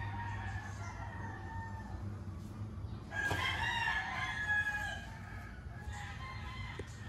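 Roosters crowing: a fainter crow at the start and a louder, longer crow about three seconds in, over a steady low hum.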